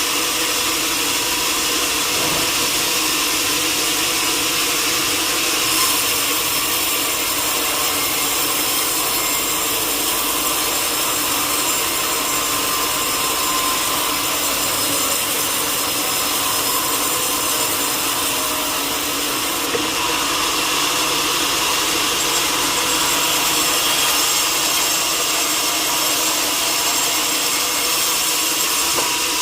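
Sawmill saw cutting through teak timber: a steady, continuous sawing noise with no pauses.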